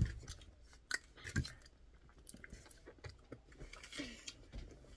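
Close-up mouth sounds of someone chewing a bite of chewy rice-cake-filled ice cream, with scattered wet clicks and smacks. There is a sharp knock right at the start and a duller thump about a second and a half in.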